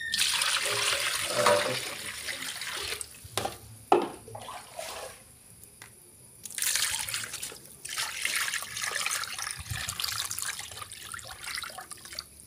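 Water poured from a plastic scoop and splashing into a wok and a basin while they are rinsed, in two long pours with a few sharp knocks about three and four seconds in.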